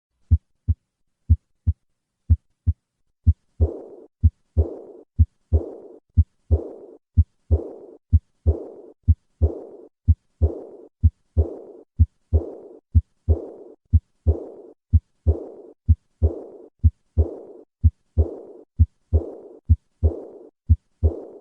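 Recorded heart sounds through a stethoscope. There are three plain beats of paired low knocks (the first and second heart sounds), and then a high-pitched murmur that fades away after the second sound of each beat. This is the diastolic decrescendo murmur of aortic regurgitation.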